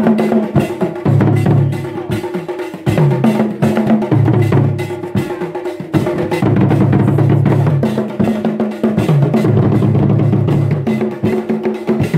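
Traditional Ghanaian drum ensemble playing: tall standing drums and pegged barrel drums struck with curved sticks in a fast, dense rhythm, with deep low drum notes recurring every second or two.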